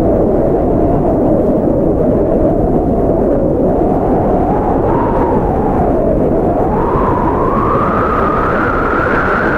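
Strong blizzard wind blowing: a deep, steady rush with a howling whistle on top that rises in pitch over the last few seconds.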